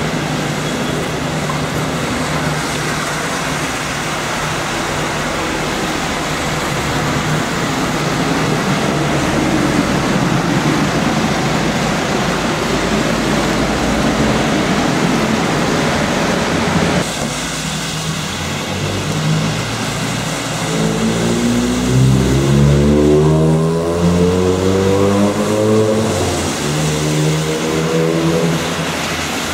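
Traffic noise of London double-decker buses on a wet road, an even hiss. After about seventeen seconds a bus engine pulls away, its pitch rising several times in a row as it accelerates.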